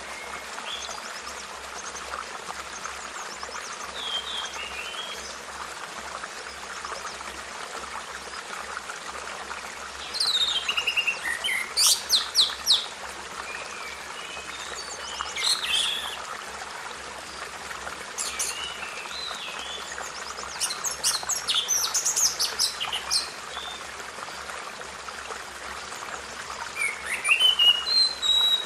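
Birds singing, several short phrases of quick high notes and glides, the loudest bursts about ten to thirteen seconds in and again around twenty-one seconds, over a steady rushing hiss.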